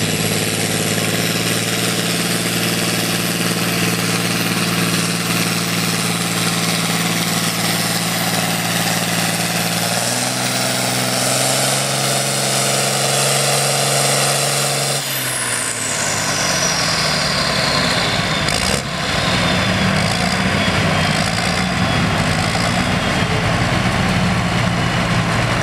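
John Deere diesel farm tractor engine running hard under load while pulling a weight-transfer sled. Its pitch shifts about ten seconds in, and about fifteen seconds in it is throttled back as the pull ends, with a high whine falling in pitch over several seconds before it settles to a rougher, lower running.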